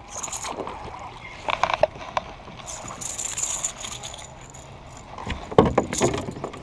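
Knocks, splashes and rattles of a small largemouth bass being landed and handled in a plastic fishing kayak. The loudest knocks come about halfway through and again near the end.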